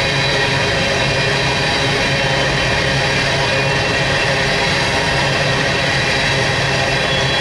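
BNSF freight train's coal cars rolling past: a steady rumble of steel wheels on rail, with several steady high ringing tones over it.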